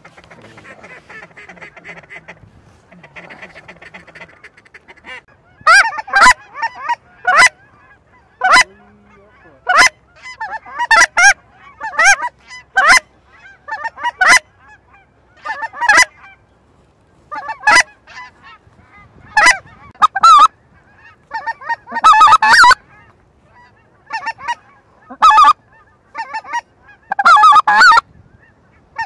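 Goose honking in loud, quick bursts that start about five seconds in and repeat every second or two, after a quieter start.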